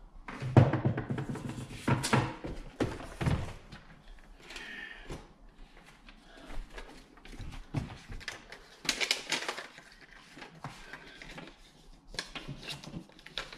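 Handling noise: scattered knocks and thumps with some rustling, the loudest cluster in the first few seconds, as tools and a paper template are handled against drywall.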